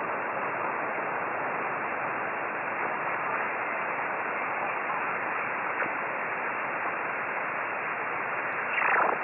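Steady hiss of shortwave band noise through a FlexRadio receiver in single-sideband mode, cut off above about 3 kHz by its narrow filter. A short falling sweep comes near the end.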